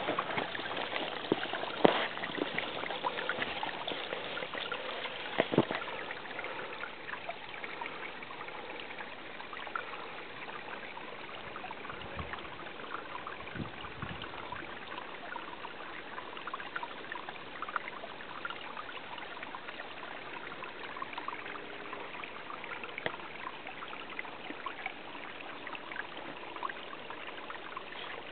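A small mountain stream trickling steadily, with a few footsteps on rock in the first several seconds.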